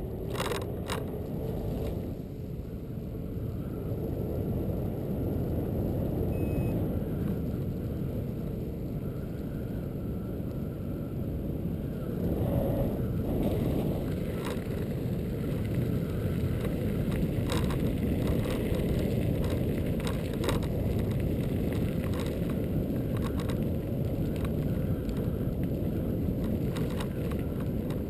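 Xiaomi M365 electric scooter riding along a paved path: a steady low rumble of the small tyres rolling over the surface, with scattered sharp clicks and rattles.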